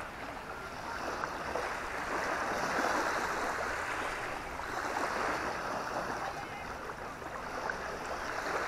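Small waves washing up onto a sandy beach, a soft rush that swells and fades every few seconds.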